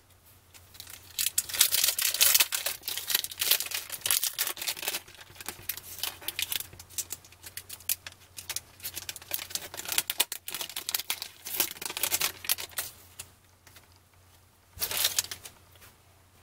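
Foil wax pack of trading cards being torn open and its wrapper crinkled and crumpled in the hands, a dense crackle that runs from about a second in until it dies down near thirteen seconds. A short burst of the same crackle comes near the end.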